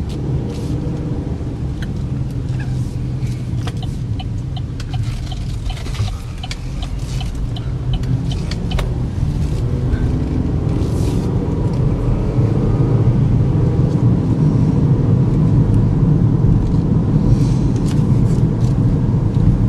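Interior cabin sound of a 2012 Chevy Equinox with its 2.4-litre four-cylinder engine being driven: a steady engine and road rumble that grows louder about halfway through as the car picks up speed, with a few faint clicks in the first half.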